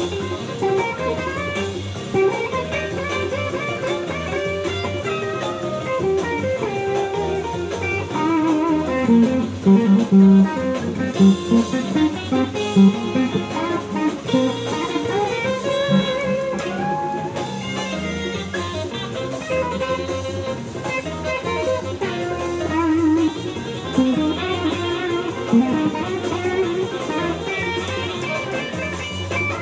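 Electric guitar played through an amplifier, a continuous run of lead lines with notes bent and wavered now and then.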